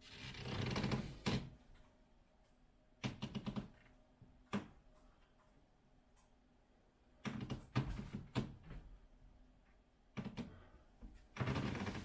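Doorframe pull-up bar creaking and clicking against the door frame under a man's weight as he pulls up and shifts from side to side. The sounds come in several bursts of rapid clicks with quiet between them.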